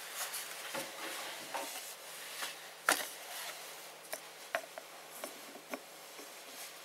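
Metal parts being handled as a split spacer sleeve is picked up and brought into a lathe headstock's bearing bore: scattered small clicks and knocks with light rubbing, the sharpest knock about three seconds in.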